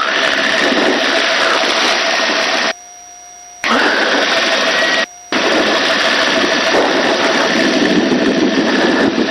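Helicopter engine and rotor noise heard through an open intercom microphone: loud steady rushing with a thin whine. It cuts out twice, for nearly a second about three seconds in and briefly about five seconds in.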